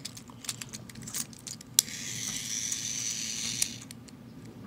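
A few light plastic handling clicks, then a switch clicks and the small battery motor of a Plarail Ashima toy engine whirs steadily for about two seconds before clicking off.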